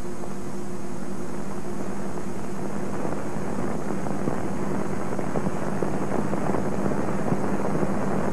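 Steady hum and hiss of an old film soundtrack, with faint crackle.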